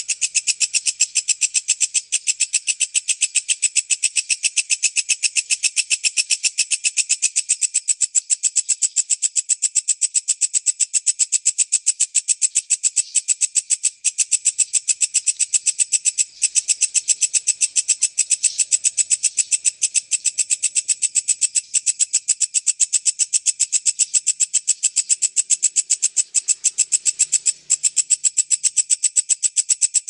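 Walang kecek bush cricket stridulating: a continuous, high-pitched trill of very rapid, evenly spaced pulses at a fast, tight tempo.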